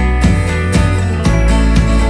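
Background music with a steady beat, led by strummed acoustic guitar.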